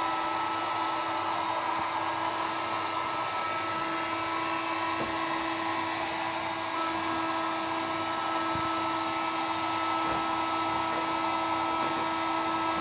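Hair dryer running steadily with an even hum, blowing hot air to melt ice off a refrigerator's frozen evaporator fan.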